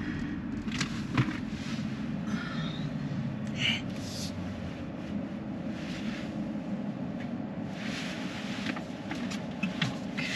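Steady low rumble of background noise, with scattered light clicks and a few brief hisses.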